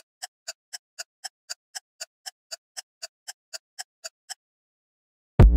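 Ticking sound effect of an intro title animation: sharp, even ticks at about four a second that stop a little over four seconds in. After a second's pause, a loud music sting with a deep bass hit starts right at the end.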